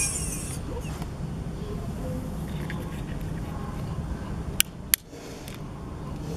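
Two sharp clicks about a third of a second apart, a little past halfway, from pressing the buttons of an e-bike handlebar control switch, over a steady low hum.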